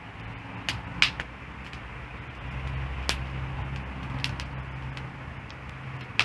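Wood campfire burning with a steady hiss and scattered sharp crackles and pops, the loudest about a second in. A low rumble runs underneath and swells in the middle.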